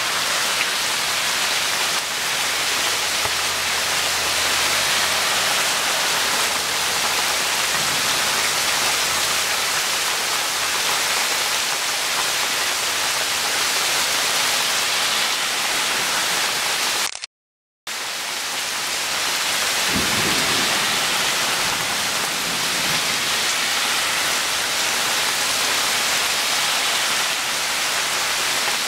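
Heavy rain falling steadily onto waterlogged ground and standing water, a dense, even hiss. The sound cuts out completely for about half a second a little past halfway.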